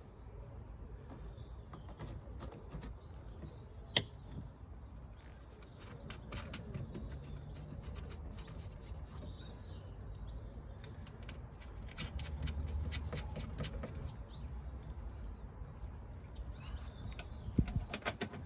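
Hands working inside a car door while refitting a window regulator and its bolts: scattered small clicks and taps of metal parts, with one sharp click about four seconds in.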